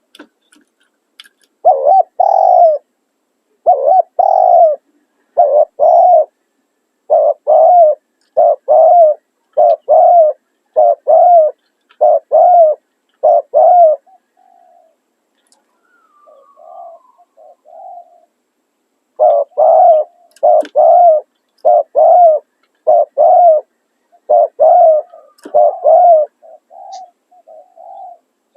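Spotted doves cooing: a long run of loud coos, evenly spaced at a bit more than one a second. Around the middle the run gives way to a few softer, lower notes, then starts again.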